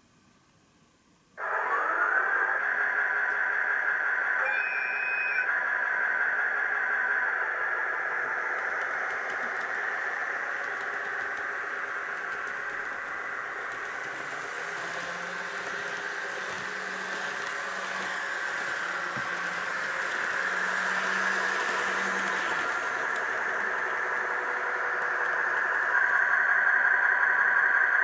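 DCC-controlled model train's motor starting up about a second and a half in with a rising whine, then running steadily with a whine and a light rattle of wheels on the track. It gets louder near the end as the train comes back close.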